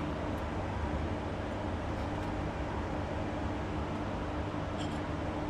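Steady hum and hiss of a running fan, with a faint steady tone under it, and a small click near the end.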